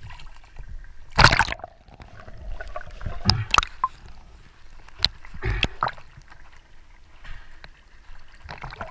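Sea water sloshing and splashing over a camera bobbing in and out of the surface, with several short loud splashes about a second in, around three and a half seconds in, and again just past five seconds.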